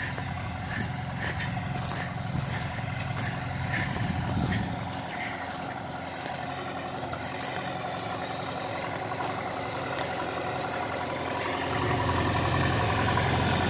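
1954 Farmall Super C's four-cylinder engine running steadily under load, pulling a 10-foot International disc at full depth in second gear, with scattered light clicks over it. The engine sound grows louder and fuller about twelve seconds in.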